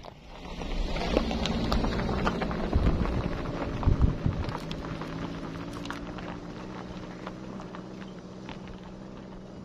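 A Daihatsu Gran Max campervan passes close by and drives off up a gravel track. Its engine runs steadily under a crunch and crackle of tyres on loose stones, loudest in the first few seconds and then fading as the van pulls away.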